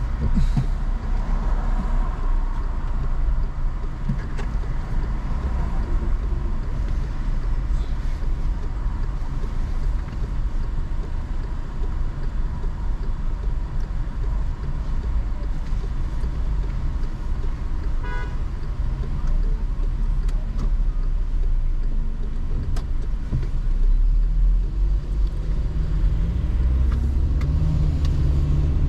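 Car engine and road noise heard from inside a moving car, a steady low rumble. There is a brief pitched tone about 18 seconds in, and near the end the engine note rises as the car speeds up.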